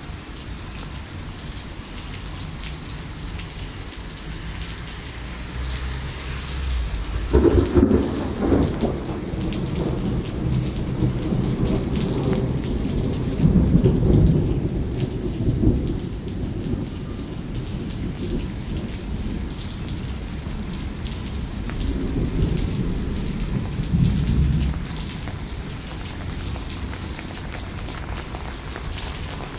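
Heavy rain pouring steadily onto pavement, with a long roll of thunder. The thunder breaks with a crack about seven seconds in, rumbles in several swells, and dies away a few seconds before the end.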